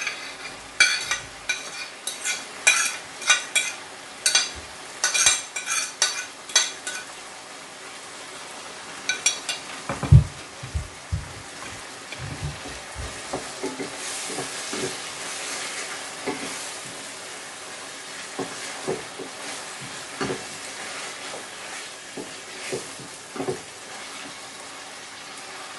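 Chopped smoked herring scraped off a plate into a stainless steel sauté pan of frying onions and tomatoes: a quick run of sharp clicks of a utensil on the plate and pan, and a low thump about ten seconds in. Then the mixture sizzles steadily in the oil while it is stirred, with scattered light knocks.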